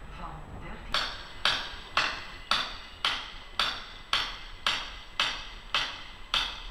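A metallic warning bell striking evenly about twice a second, eleven ringing strokes.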